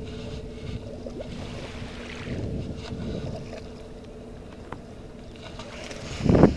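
Outdoor wind and water noise at the water's edge under a steady low hum. A brief loud low rumble of wind buffeting the microphone comes near the end.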